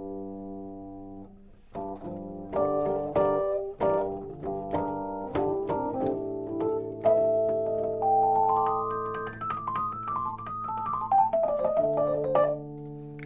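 Vintage keyboard played through a Boss Spectrum SP-1 pedal: a held chord dies away, then chords are struck one after another, and from about seven seconds in a melody climbs and falls over sustained chords before settling on a held chord.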